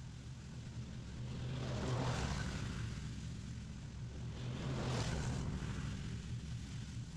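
Lawn mower engine running steadily while mulching fallen leaves, with two swells of rushing noise about two and five seconds in.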